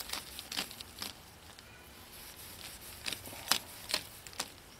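Plastic-sheathed electrical cable being drawn through a wet cloth and off its coil: soft rubbing and rustling with a scattering of sharp clicks as the loops knock and slip.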